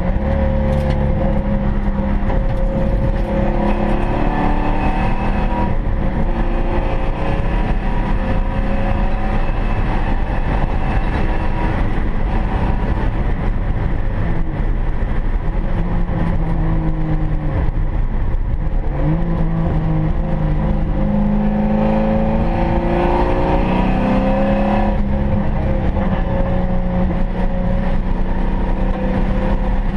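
1995 Ford Mustang SVT Cobra R's 5.8-litre V8 heard from inside the cabin on track. Its revs repeatedly climb and fall through gear changes and corners, with a sharp drop and pickup about two-thirds of the way through.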